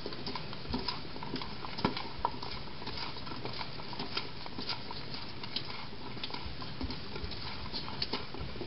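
Hands mixing raw cauliflower florets coated in olive oil in a stainless steel bowl: soft, irregular clicks and rustles of florets against the metal and each other.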